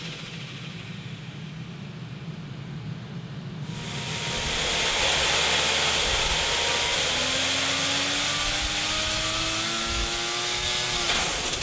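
Turbocharged Mazda 20B three-rotor rotary engine on an engine dyno doing a full-load pull. It runs low and quiet for the first few seconds, then about four seconds in gets louder and climbs steadily in pitch as it revs up, dropping away near the end.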